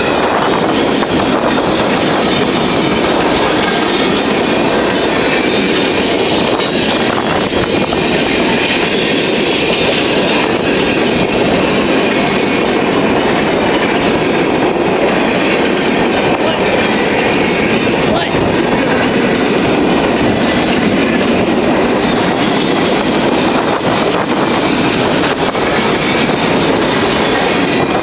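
Empty centerbeam lumber cars of a freight train rolling past at speed: a loud, steady rumble of steel wheels on the rails.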